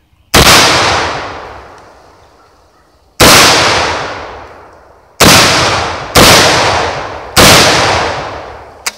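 Five shots from an SDS Lynx 12, a semi-automatic 12-gauge shotgun, coming quicker as they go: the first two about three seconds apart, the last three about a second apart. Each shot is followed by a long echo that dies away over a second or two.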